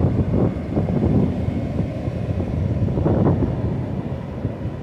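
Wind buffeting the phone's microphone in an uneven, gusty low rumble, over surf breaking on the shore.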